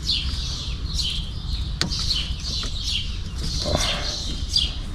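Birds chirping repeatedly, short high chirps falling in pitch a few times a second, over a steady low rumble, with one sharp click a little under two seconds in.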